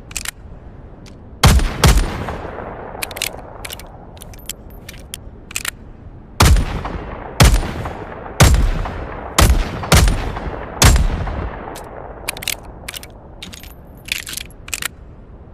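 P-4 Senator revolver sound effect: two shots about half a second apart, a run of sharp clicks, then six more shots at roughly one-second intervals, each with a ringing tail. More clicks follow near the end.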